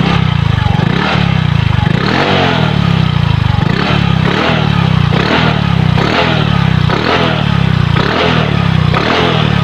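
Yamaha Mio i 125 scooter's single-cylinder four-stroke engine, breathing through an RS8 Power Pipe Silent Killer aftermarket exhaust, revved in a string of short throttle blips, about one a second, each rising and falling back toward idle.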